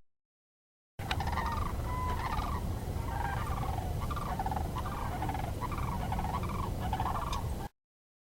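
Bird calling: a run of a dozen or so short, repeated calls over a steady low rumble. It starts about a second in and cuts off suddenly near the end.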